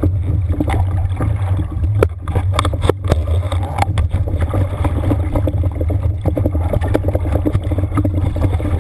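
Underwater sound through a camera housing: a steady low drone with irregular crackles and sharp knocks from water and handling of the line.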